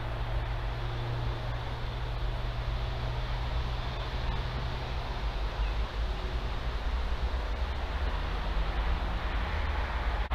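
Steady low rumble and hiss of outdoor background noise picked up by a trail camera's microphone, with a low hum that fades out about halfway through; no distinct event.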